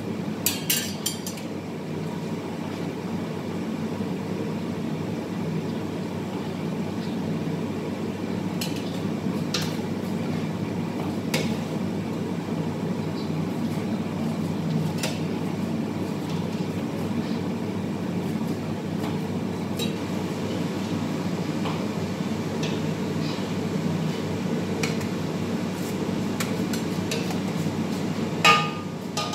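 A metal wire skimmer clinks and knocks against a large frying pot now and then as fried pieces are scooped out, with a sharp clank near the end. Under it runs a steady low rumble from the stove.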